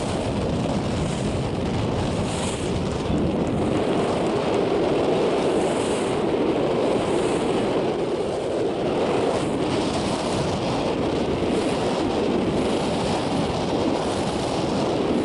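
Steady wind noise buffeting the microphone over rushing water, an even rumbling hiss with no breaks.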